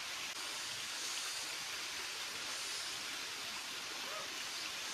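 Steady rush of stream water cascading over rocks.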